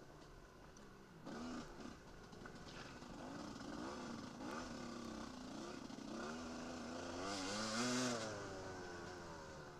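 Enduro dirt bike's engine revving up and down again and again as the throttle is worked at race pace, loudest about eight seconds in.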